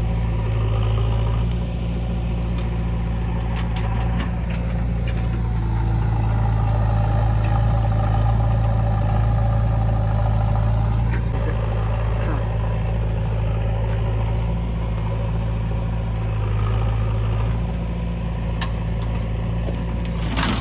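Heavy diesel machinery engine running steadily at an even speed, with a few light knocks about four seconds in and near the end.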